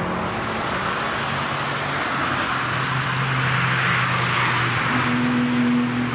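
Cars passing at speed one after another, engines held at steady revs, with a louder pass-by about four seconds in.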